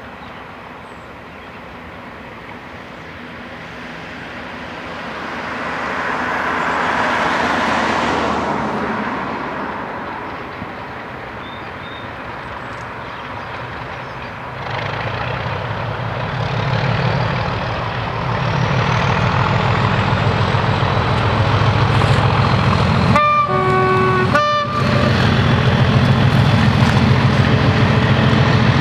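Class 37 diesel locomotive 37425's English Electric V12 engine opened up to full power, its heavy beat growing louder as it approaches, with a short two-tone horn blast about two-thirds of the way through. Earlier, a road vehicle passes close by with a rush that rises and falls.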